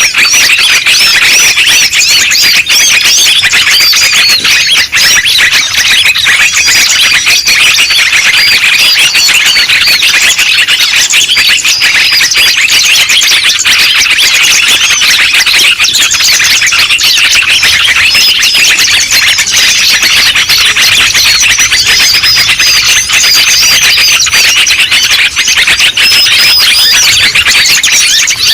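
A dense, loud clamour of many small birds calling at once, with rapid high chirps and trills overlapping without a break. This is a 'noisy birds' lure recording, made to draw wild birds in.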